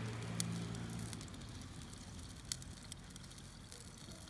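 Wood campfire crackling, with scattered sharp pops and snaps. A low steady hum sounds through the first second, then fades.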